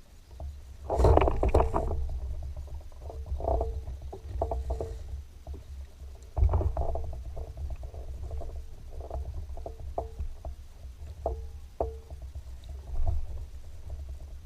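Water slapping irregularly against a fishing boat's hull, knocking again and again over a steady low rumble.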